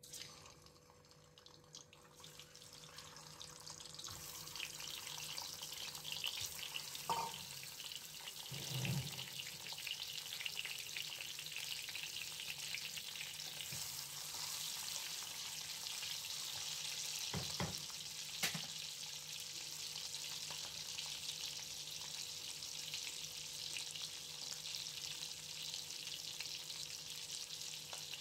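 Boiled eggs and potato pieces frying in hot mustard oil in a wok, sizzling steadily after the hiss builds over the first few seconds. A few knocks come as the pieces go into the pan and are moved about.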